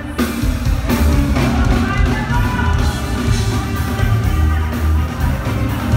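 Live band music played loud through a concert sound system: electric guitars, drums and a singing voice, heard from among the audience.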